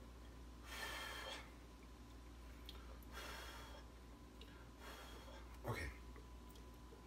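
A person blowing softly on a hot forkful of mac and cheese to cool it: two faint puffs of breath about two seconds apart, then a shorter breath near the end.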